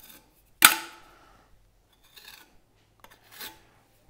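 Steel plastering tools working travertine plaster: one sharp metal clack a little over half a second in, then two short scrapes of the blade across wet plaster.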